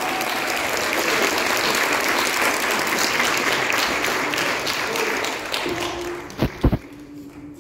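Church congregation applauding, dying away near the end, with two sharp knocks just before it fades.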